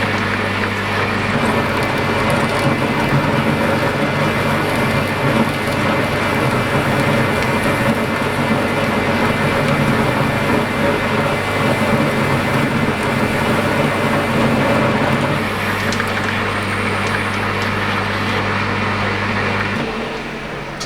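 A grinder working a workpiece spinning on a lathe: a continuous grinding hiss over a steady motor hum. The hum stops near the end.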